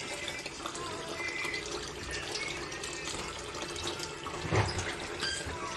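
Tap water running in a steady stream into a plastic basin of water, splashing onto the colander of blanched greens being cooled and rinsed.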